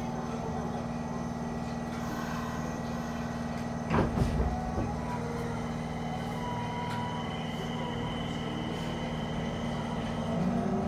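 Nagoya subway 5050-series train heard from inside the car: a steady hum with a sharp knock about four seconds in, and low tones starting to rise near the end.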